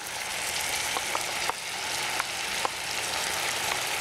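Blended spinach mixture sizzling steadily as it is poured into a pan of very hot oil, with a few short sharp ticks scattered through.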